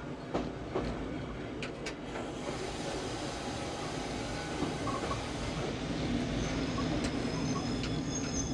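Meitetsu Komaki Line electric train running, heard from the driver's cab: a steady rumble of wheels on rail that grows slightly louder, with a few sharp clicks in the first two seconds and thin high-pitched tones coming in near the end.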